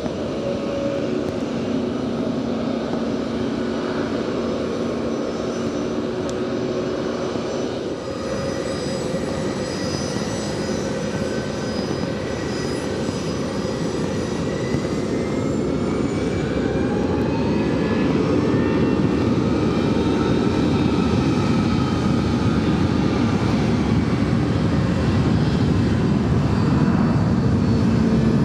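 Jet airliner engines in heavy rain: a steady engine hum under the hiss of the downpour. In the second half a whine climbs in pitch as the engines grow louder.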